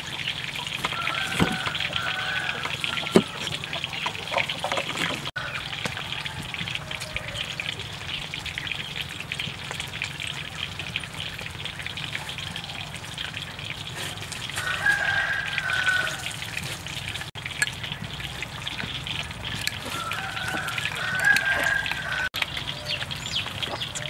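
Two sharp chops of a cleaver through limes onto a cutting board in the first few seconds, over a steady outdoor hiss, with short bird calls three times, the longest near the middle and toward the end.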